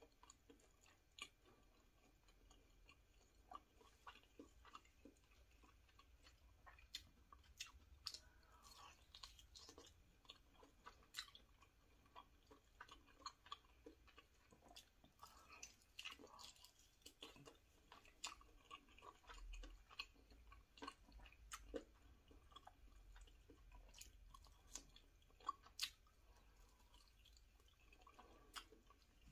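Close-miked chewing of lollipop chicken drumstick meat: soft, irregular wet mouth clicks and smacks throughout.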